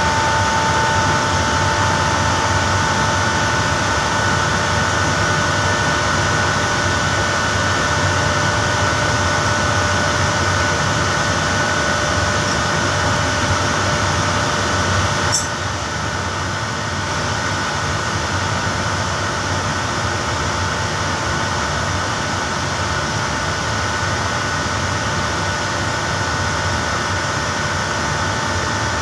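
Steady machine noise of an air-conditioning screw compressor plant, a running hum with several steady whining tones. About halfway through there is one sharp click, and after it the sound is a little quieter.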